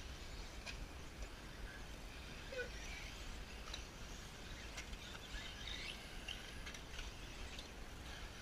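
Faint outdoor ambience: a low steady rumble of wind on the microphone, with scattered brief faint chirps and a few light clicks.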